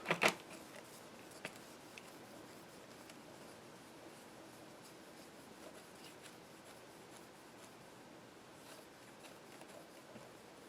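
A sharp knock right at the start, then faint soft rubbing with a few light ticks: a cloth wiping over the LCD screen and the hands handling it.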